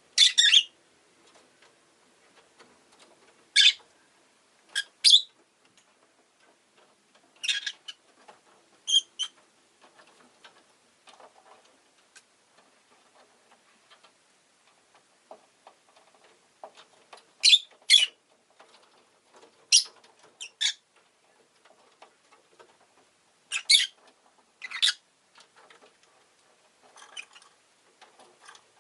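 Rosy-faced lovebird giving short, sharp, high-pitched chirps, one at a time or in quick pairs, every few seconds.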